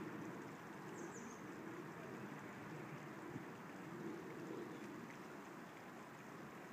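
Calm sea water washing gently against a rocky shore, a quiet steady wash that swells and eases slowly, with one short click about halfway through.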